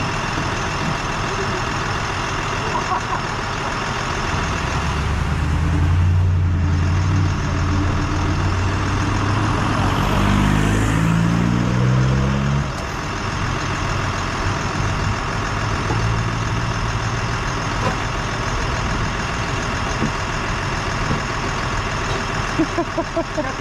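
Fish-stocking truck's engine idling steadily. From about five seconds in a louder engine sound joins, stepping up in pitch, and cuts off suddenly near the middle.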